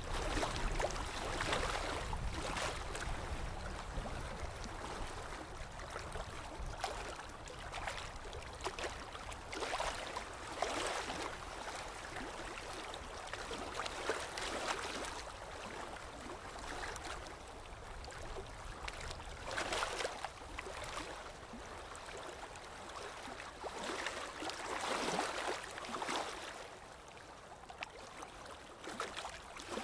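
Water lapping in small irregular splashes every second or two against a low background rumble of wind.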